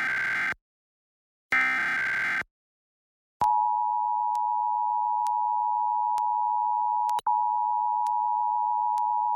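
Emergency Alert System test signal: the end of one SAME header data burst and then another burst about a second long, the last of the header's three repeats. After about a second of silence, the steady two-tone EAS attention signal starts, with a brief dropout about seven seconds in.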